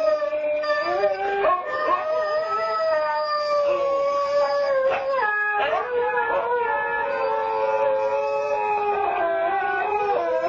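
Two huskies howling together in long, drawn-out howls at two different pitches that overlap and slowly slide, with a brief break about five seconds in. Picked up by a home security camera's microphone.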